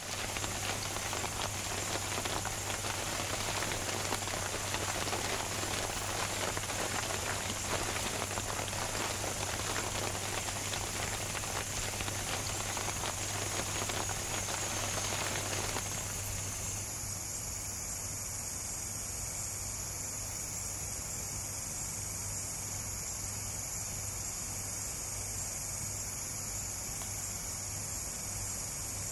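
Steady rain pattering with a high, steady insect trill above it. About halfway through the patter drops away, leaving a steadier high-pitched night insect chorus.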